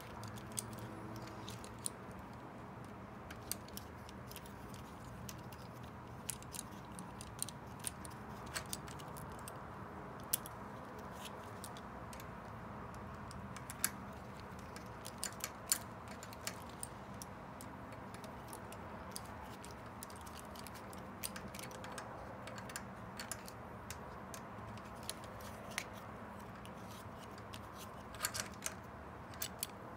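Scattered small metallic clicks and taps of a folding hex-key multi-tool and bicycle stem parts being handled while a stem is fitted onto a fork steerer, over a steady faint hum.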